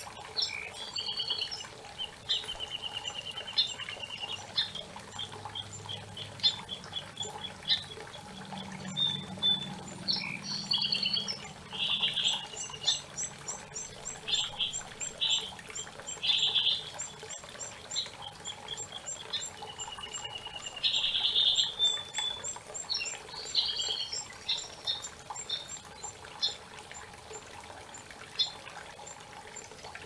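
Several songbirds singing and calling over a steady rushing creek: quick trills and chirps, with a long run of thin, very high repeated notes through the middle.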